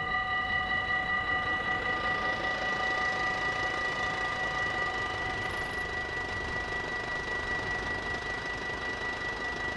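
Dutch level-crossing warning bell ringing on and on in a quick, even pulse of several steady tones. A rushing noise builds up underneath it from about two seconds in.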